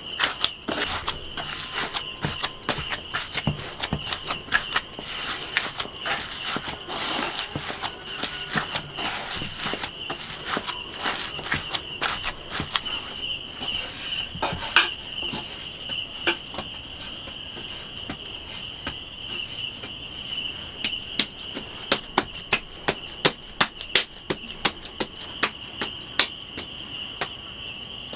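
Hands kneading and pressing a stiff flour dough in a bowl: a run of soft squishes and pats, with sharper clicks toward the end. A steady high-pitched insect chirring goes on behind.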